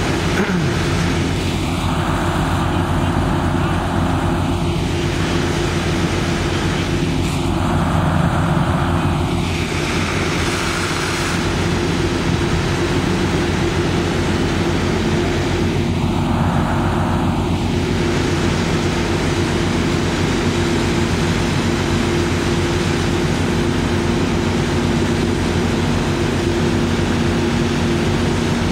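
Fire truck's engine running steadily at a constant drone, powering its pump to feed the hose lines.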